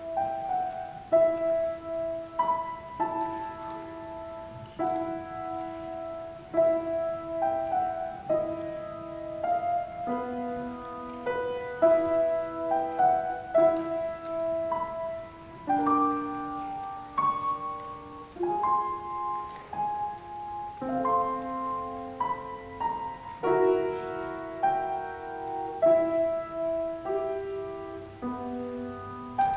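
Grand piano played solo: a simple melody of separate notes in the middle range, moving to fuller chords from about halfway through.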